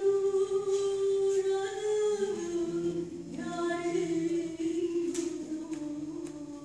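A woman singing a Turkish folk song (türkü) unaccompanied, holding long notes that she ornaments with slides between pitches.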